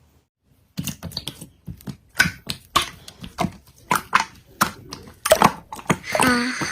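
Slime being pressed and kneaded: a run of irregular sticky clicks and crackling pops, starting about a second in.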